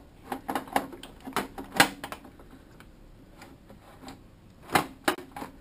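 Scattered clicks and light knocks from a plug-and-play Megasquirt 2 ECU box and its wiring connectors being handled. There is a cluster in the first two seconds and two more near the end.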